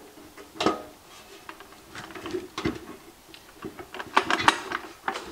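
Scattered clicks and knocks of a steel ammo can being handled, with a quick run of sharper metallic clicks about four seconds in.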